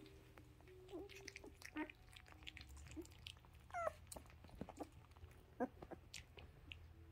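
Very young puppies, eyes just opening, squeaking and whimpering softly in short calls, with one louder wavering squeal about four seconds in, over a low steady hum.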